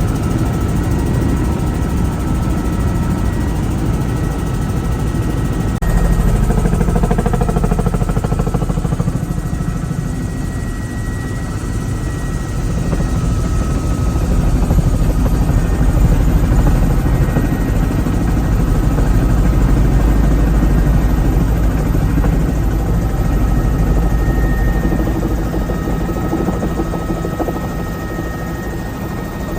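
Helicopter in flight heard from on board: loud steady rotor and engine noise with a deep rumble and a couple of thin steady high tones, swelling and easing a little.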